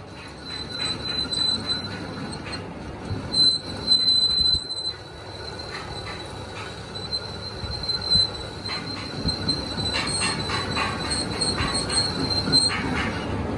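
Metal being machined on a lathe: a high-pitched metal-on-metal squeal that comes and goes, over the machine running and scattered clanks.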